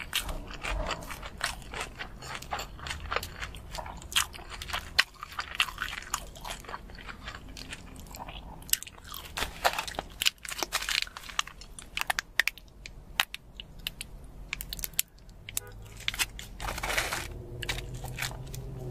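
Close-up eating of crispy battered fried food: bites and chewing with a dense run of sharp crunches.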